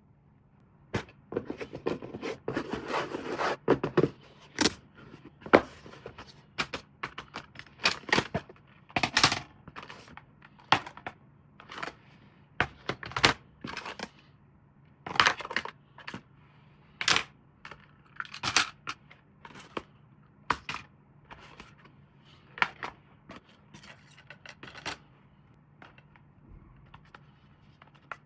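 Hands unboxing and handling plastic toys and their packaging: irregular sharp clicks and taps, with a stretch of rustling about two to four seconds in.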